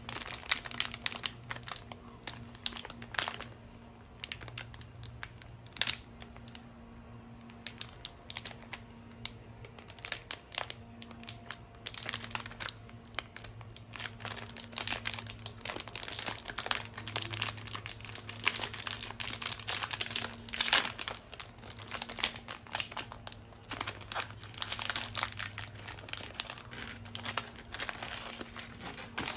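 Metallised plastic wrapper of a Bauducco Recheadinho biscuit pack crinkling as it is handled, twisted and torn open. The crackling is dense and irregular, busiest in the middle stretch.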